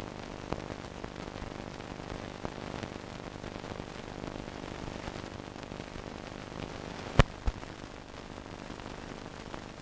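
Old film soundtrack noise: steady hiss and low hum with scattered faint crackles, and two sharp pops close together about seven seconds in.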